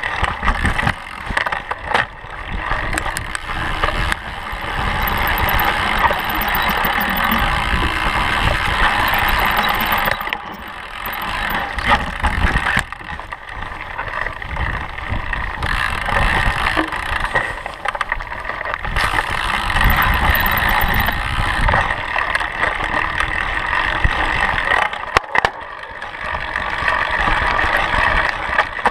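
Mountain bike ridden along a dirt singletrack: steady rushing tyre-and-trail noise with a rumble that rises and falls, and sharp knocks now and then as the bike hits bumps.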